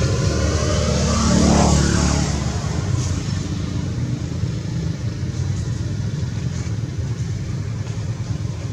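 Low rumble of a motor vehicle's engine, rising about a second and a half in as it passes, then running on more steadily.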